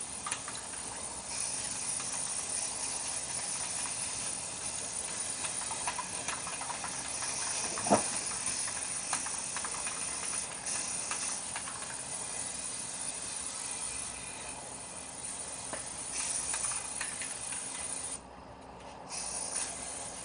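Aerosol can of white spray paint hissing in a run of long sprays, with a short break near the end. A single sharp knock comes about eight seconds in.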